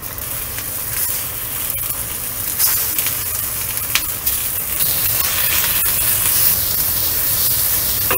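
Pieces of Australian salmon sizzling as they go one by one into hot oil in a stainless steel wok, the frying hiss growing louder as more pieces are added, with a few small clicks.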